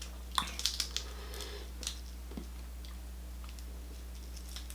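Close-miked mouth and eating sounds of a person eating seafood boil: a quick cluster of wet clicks and smacks in the first second, then only a few faint ones, over a steady low hum.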